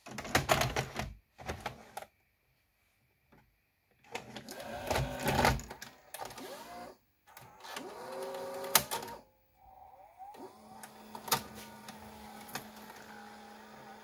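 VHS cassette pushed into an Aiwa HV-M10SH video cassette player and pulled in by its front-loading mechanism. Clicks and knocks come first, then the loading motor whines up and down in pitch. From about ten seconds in, a motor runs steadily with scattered ticks as the cassette seats.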